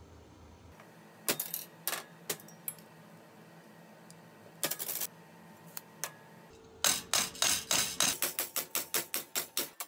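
Wire cutters snipping through the wires of a wire grill grate, a sharp click with each cut, about eight cuts in all. From about seven seconds in, a fast run of hammer blows, about three or four a second, on a steel bar clamped in a vise over the grate, bending its wires over.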